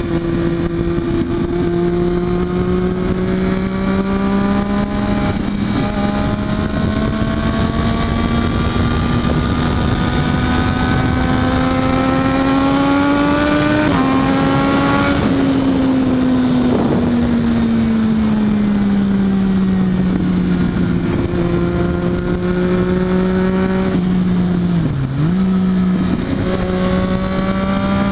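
Triumph Daytona 675R's three-cylinder engine running at high revs. Its note climbs slowly for about half the clip, then eases down and holds steady, with a brief dip and recovery near the end.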